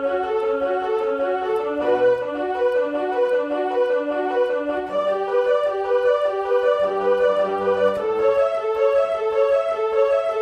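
Casio CTK-240 portable keyboard playing a steady run of quick, evenly spaced melody notes, with occasional low bass notes underneath.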